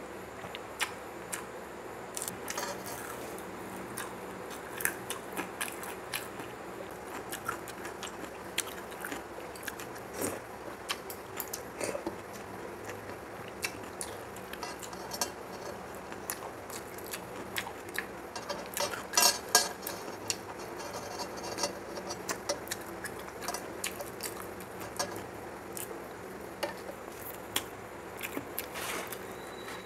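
Eating sounds at close range: fingers mixing rice and curry on a metal plate, and chewing, with scattered sharp clicks and a louder burst of clicks about nineteen seconds in.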